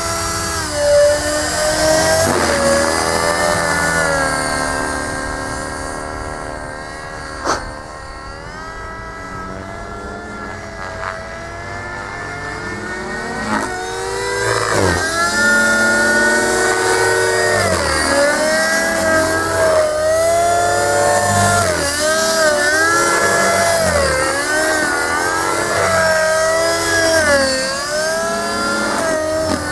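Gaui NX4 radio-controlled helicopter flying overhead, its rotor and motor whine rising and falling in pitch in repeated swoops as it manoeuvres. It is quieter for a while in the middle, and there is one sharp click about seven seconds in.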